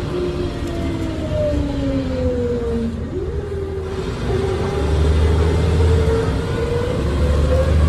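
Diesel engine and driveline of a 2001 MAN 12.220 bus, heard from inside the passenger cabin while driving. Its whine falls in pitch for about three seconds, jumps up suddenly, then climbs slowly as the bus pulls on, over a deep rumble that grows louder in the second half.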